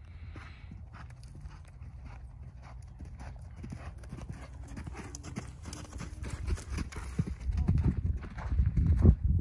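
A horse's hooves cantering on sand arena footing, the hoofbeats getting louder in the second half and loudest near the end.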